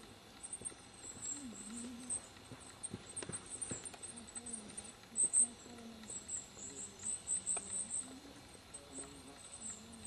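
High-pitched, cricket-like insect chirping in quick clusters, loudest in the middle, over a faint low wavering hum.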